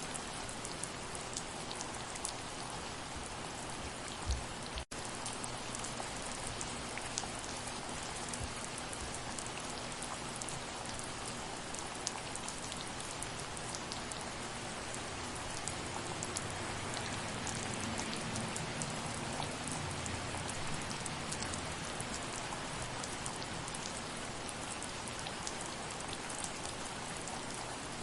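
Steady soft rain falling, with scattered individual drops ticking through it. The sound cuts out for an instant about five seconds in.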